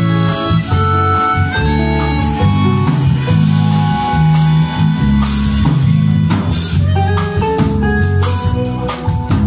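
Live jazz band: harmonicas play held melody notes over electric bass, electric guitar and drums.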